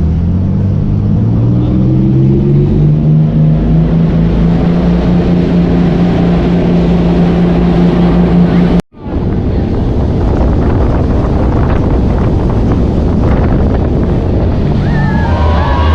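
Jet ski engine speeding up, its pitch rising over the first few seconds and then holding steady at speed, with wind buffeting the microphone. The sound drops out briefly about halfway through, then goes on as wind and water noise.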